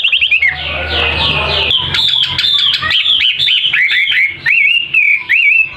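A wambi songbird singing vigorously, a 'gacor' song: rapid chirps and quick falling sweeps, ending in a string of rising-then-falling whistles. A low hum runs underneath for the first couple of seconds.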